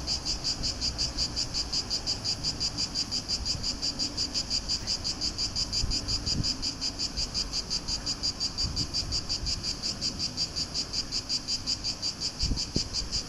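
Cicadas singing in the summer heat, a steady high buzzing that pulses evenly at about five beats a second.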